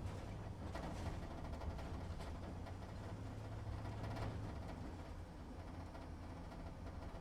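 Truck engine running at low revs, heard from inside the cab: a steady low drone, with a few brief light rattles about a second, two seconds and four seconds in.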